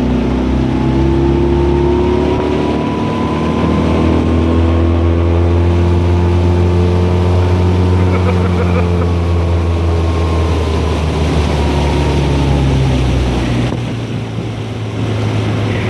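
Boat motor running steadily, its level dropping for a moment near the end before it picks back up.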